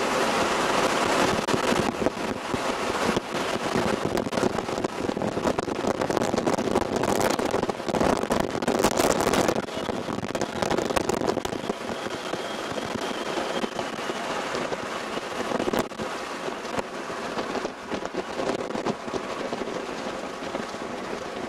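Strong storm wind buffeting the camcorder's microphone: a steady rushing roar full of crackles and pops, easing somewhat in the second half.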